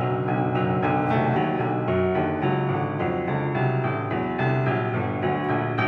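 Contemporary chamber ensemble of alto saxophone, electric guitar, piano and marimba playing, with piano most prominent: a steady stream of quick repeated notes over long held low tones.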